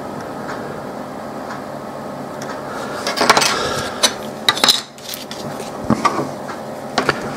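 Light clicks and clatter of a circuit board and metal tweezers being handled and turned round on a desk: a cluster of clicks about three seconds in, several more a second or so later, and a few near the end, over a steady background hum.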